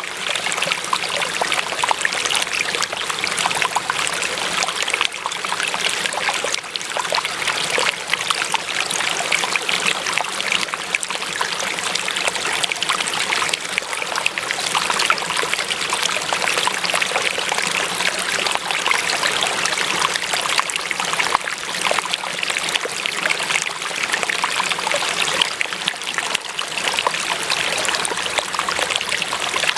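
Water running steadily over stones in a shallow stream, a continuous babbling and trickling.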